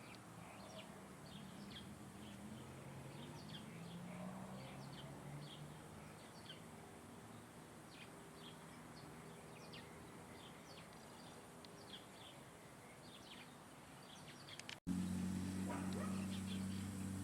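Birds chirping: many short, high chirps in quick succession over a faint low hum. About fifteen seconds in, it cuts abruptly to a louder, steady low hum.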